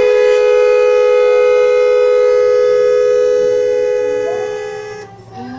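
Electric multi-tone telolet bus horn holding one steady, siren-like chord for about five seconds, then fading out near the end.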